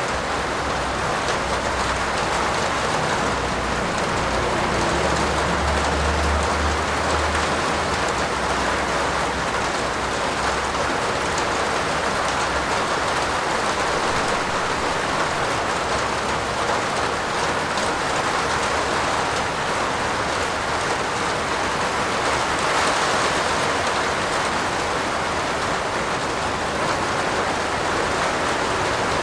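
Steady heavy rain falling, with a low rumble underneath during the first ten seconds or so.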